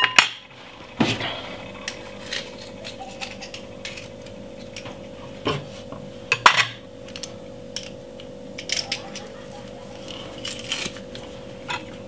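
Metal garlic press and utensils clicking and clinking against one another and a glass bowl while garlic is loaded and squeezed, with scattered knocks, the loudest about a second in and about six and a half seconds in. A steady hum runs underneath.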